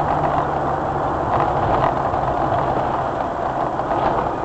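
A car's engine running with tyre and road noise on a wet road, heard from inside the cabin through a dashcam; a steady drone with a low hum.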